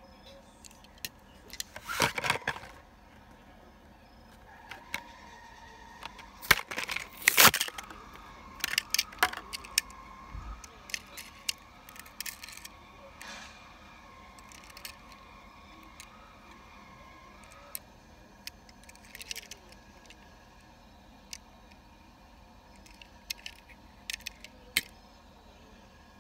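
Die-cast Hot Wheels toy cars and their plastic packaging being handled: scattered clicks, light rattles and crackles, the loudest a few sharp clacks about two seconds in and again around seven seconds in.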